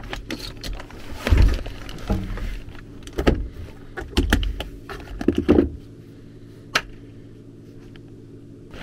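Handling noise: a string of irregular knocks, clacks and rustles as tools and a plastic zone-control board are moved about, with one last click after a quieter stretch.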